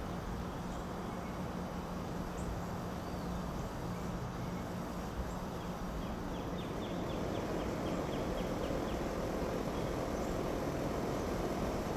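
Small birds chirping at sunrise, a few scattered high calls and a quick run of short notes a little past halfway, over a steady low background rumble.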